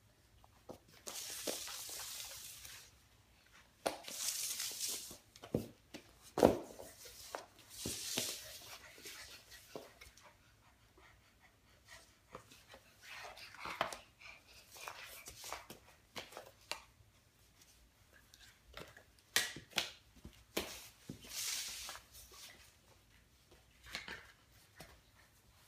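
Large cardboard floor-puzzle pieces being slid, shuffled and set down on a wooden floor: irregular scraping swishes of a second or so, with scattered taps and knocks, the loudest about six and a half seconds in.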